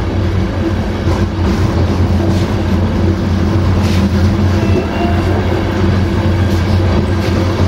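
Passenger train running on the line, heard from the rear of the last coach: a steady low drone of wheels on rails with a few sharp clicks as the wheels cross rail joints.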